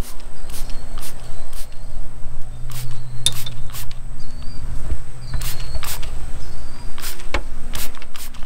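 Trigger spray bottle of spray wax squirting: about fifteen short hissing sprays, often in quick pairs or threes, over a steady low hum.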